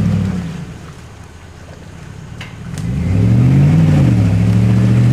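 Car engine revving off-road: a rev falls away in the first half-second, then about three seconds in the engine revs up again and is held at high revs.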